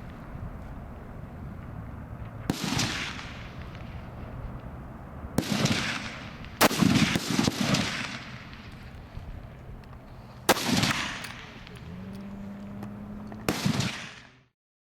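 Centerfire F-Class target rifles firing on the firing line: five loud single shots at uneven intervals, each with a ringing echo tail.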